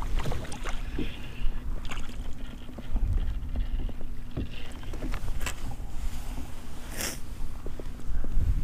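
Fishing boat slow-trolling under an electric trolling motor: a low rumble with a faint steady hum, and scattered clicks and knocks of rods and gear being handled, the sharpest about seven seconds in.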